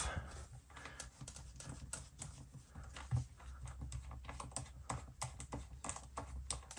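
Faint, irregular small clicks and taps of a precision screwdriver with a pentalobe bit working the bottom-case screws out of a MacBook Pro, over a low steady hum.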